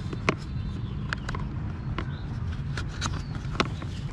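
Sharp plastic clicks and taps as the body of a toy garbage truck is handled and its wheel parts are fitted, about eight or nine clicks spread irregularly, over a steady low rumble.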